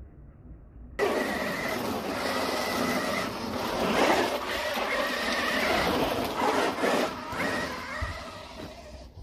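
Losi Super Baja Rey 1/6-scale RC truck driving hard: its electric motor whines, rising and falling with the throttle, while the tyres scrabble over gravel and moss. It starts abruptly about a second in, is loudest near the middle and fades near the end.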